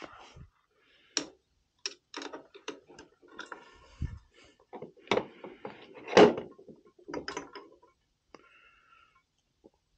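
Allen key working the cover screws of a Riello oil burner's fuel pump, with scattered small metal clicks and scrapes as the cover is loosened and lifted off to reach the strainer. A louder clack comes about six seconds in.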